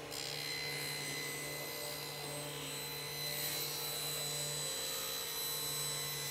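Table saw ripping a walnut board: the blade's steady whine and hiss as it cuts along the grain, over the low hum of the saw's motor.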